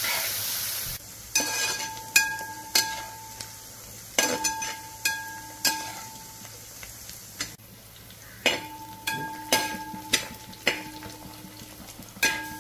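Sliced onions frying in oil in a large metal pot, being sautéed towards golden brown. The sizzle is loud at first and drops off suddenly about a second in. After that a perforated metal skimmer stirs the onions and clinks against the pot about a dozen times, each strike ringing briefly.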